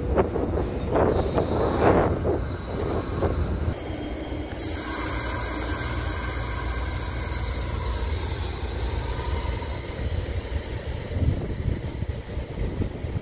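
Passenger train moving through the station: a steady low rumble, with uneven rushes of noise in the first few seconds, changing about four seconds in to a steadier sound with a held high whine over it.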